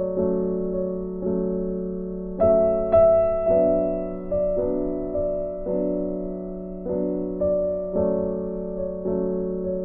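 Background piano music: notes and chords struck about once a second, each ringing out and fading.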